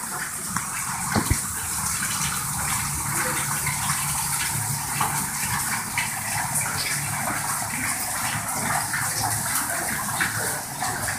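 Floodwater from a damaged fire sprinkler gushing steadily, pouring and splashing into a plastic bin and across a flooded stairwell floor. A couple of sharp knocks come about a second in.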